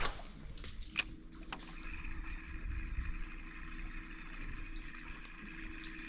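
Bow-mounted electric trolling motor running with a steady hum and a higher whine, setting in about one and a half seconds in. A few sharp clicks come just before it.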